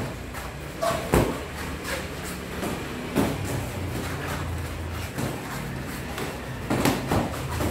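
Boxing gloves landing punches during sparring: a few sharp slaps at uneven spacing, the loudest about a second in, with others around three seconds and near the end.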